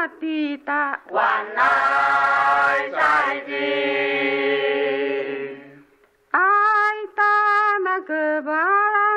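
Chant-like singing. A melodic vocal line gives way about a second in to a louder, fuller passage of several voices. That passage ends in a long held note that fades into a brief pause. The melodic singing line then resumes.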